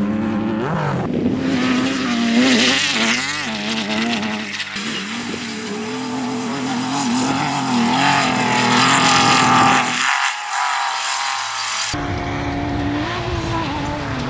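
Off-road race car engines revving hard, their pitch rising and falling with the throttle. The low engine sound drops out briefly about ten seconds in, then returns.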